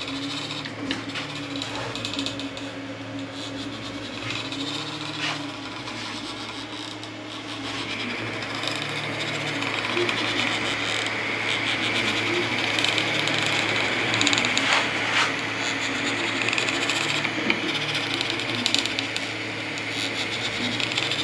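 3D printer printing: its stepper motors hum in tones that shift every second or two, over the steady hiss of its cooling fans. The hiss grows louder about eight seconds in.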